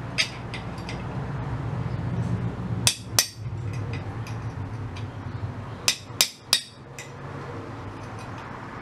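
Sharp metal knocks as a gumball machine part is forced into place in a bench vise: two about three seconds in and a quick run of three about six seconds in, over a steady low hum.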